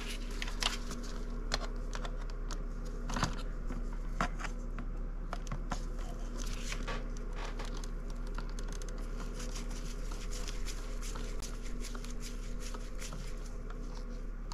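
Hex driver turning a screw into the plastic chassis of a 1/10 RC truck: many small irregular clicks and scrapes of metal tools on plastic, over a steady low hum.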